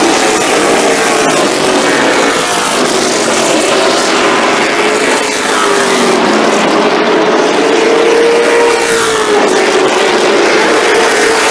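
Several late model stock cars' V8 engines running hard around a short oval. Their overlapping engine notes rise and fall in pitch as the cars go round.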